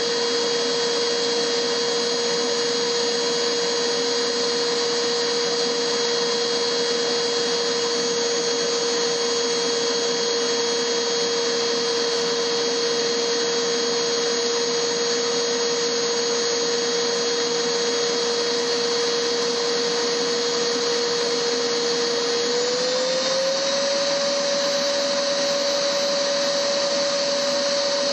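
Vacuum cleaner running steadily: a dense rush of air with a strong motor whine, whose pitch rises a little and settles higher about 23 seconds in.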